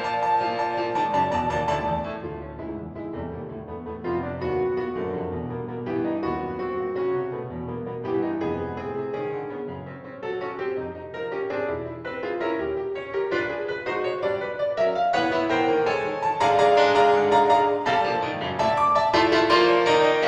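Piano music, a slow prelude: notes and chords played softly through the middle, swelling louder and fuller a few seconds before the end.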